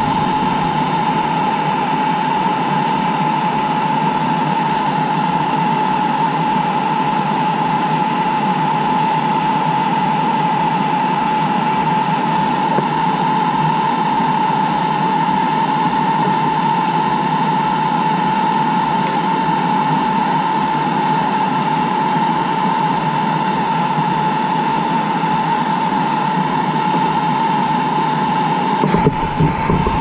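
Hand-held propane torch burning steadily while heating a copper pipe fitting for soldering: a constant hiss with a steady tone over it.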